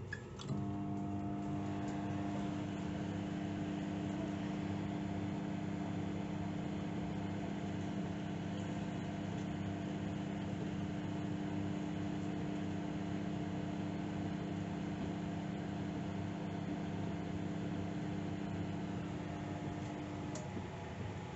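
Microwave oven running at medium power: a click about half a second in, then a steady hum that cuts out with another click near the end, while the fan noise carries on. This is the magnetron cycling on and off, as it does at reduced power.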